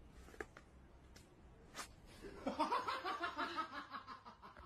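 A person laughing in quick, breathy bursts, starting a little before halfway through; a few faint clicks come before it.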